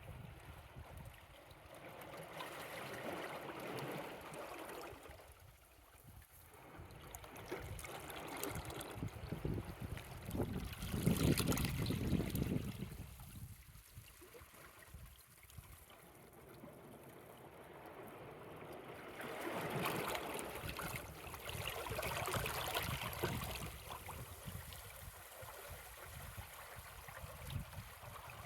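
Small sea waves lapping over shoreline rocks and water trickling back between them, in slow swells that rise and fall every several seconds. The loudest surge comes about eleven seconds in, with another long swell past the twenty-second mark.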